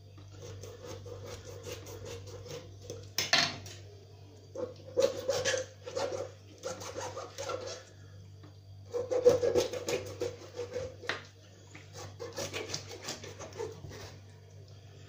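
A knife scraping and cutting through a carp's scales and skin on a stone countertop, in four bursts of quick rasping strokes with a sharp louder stroke a little after three seconds in. A steady low hum runs underneath.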